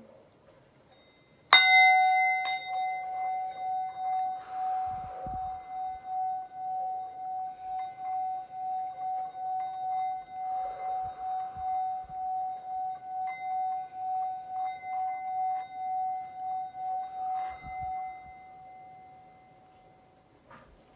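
Metal singing bowl struck with a wooden striker, then kept singing as the striker circles the rim. One steady ringing tone with a slow pulsing wobble holds for a long while and fades away near the end.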